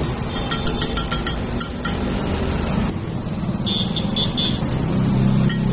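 Steady street traffic noise, with a run of light metallic clinks in the first two seconds and short horn toots in the last two seconds.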